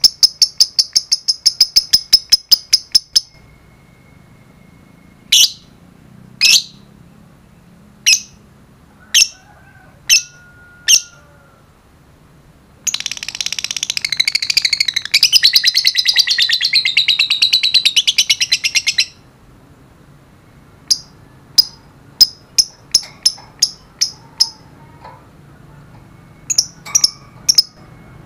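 Fischer's lovebirds calling: a quick run of sharp chirps, then single shrill calls about a second apart. About halfway through comes an unbroken, rapid chattering trill lasting some six seconds, the long chatter that Indonesian keepers call ngekek. More quick chirps follow near the end.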